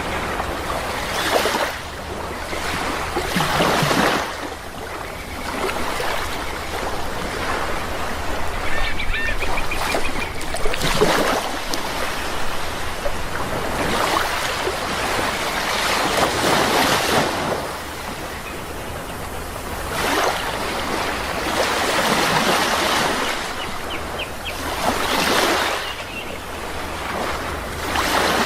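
Sea waves breaking and washing in, one surge every few seconds, with a few faint bird calls over them.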